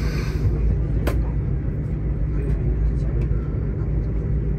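Steady low rumble of a high-speed train running at speed, heard from inside the carriage, with a short click about a second in.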